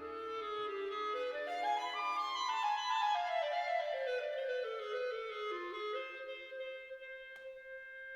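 Background music: a woodwind melody, clarinet-like, rising in steps over the first couple of seconds and then falling back, ending on a long held note.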